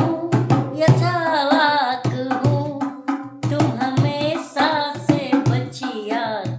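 A Hindi song sung by one voice over a steady hand-drum beat, the melody gliding and wavering between held notes.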